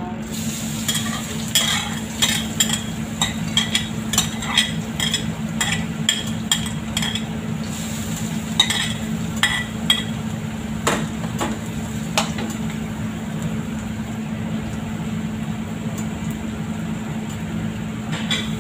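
A metal spoon and ladle clink and scrape against a metal wok about twice a second as minced garlic is stirred in the pan, with a faint sizzle of the garlic frying. The stirring stops about twelve seconds in, leaving a steady low hum and the sizzle.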